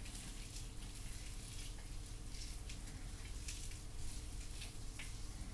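Gloved hands working a wet amla powder paste through hair: quiet, irregular wet crackling, over a faint steady low hum.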